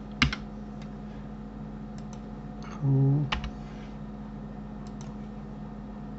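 Computer keyboard keys and mouse buttons clicked now and then, a few sharp separate clicks with the loudest just after the start. A short low hum about halfway through.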